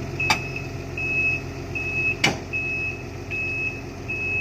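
Heavy-equipment travel alarm beeping, one high steady beep about every three-quarters of a second, over a diesel engine running low. Two sharp knocks, the louder about two seconds in.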